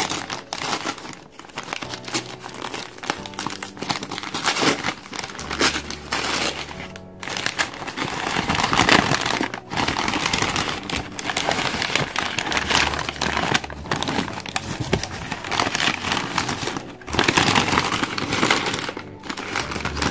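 Newspaper wrapping being pulled apart by hand, crinkling and rustling continuously with irregular crackles as the sheets are torn open.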